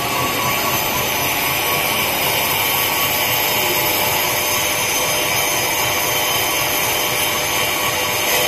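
High-speed rotary label die-cutting machine running at line speed, a steady mechanical whir and hiss.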